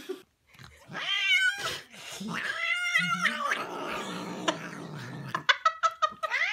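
Domestic cat yowling in long, wavering cries, the caterwaul of an angry, agitated cat. A few sharp clicks come near the end.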